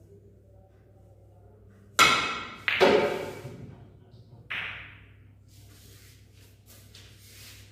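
A snooker shot: two loud, sharp clacks of cue and balls less than a second apart, then a weaker knock about a second and a half later, each echoing briefly in the hall.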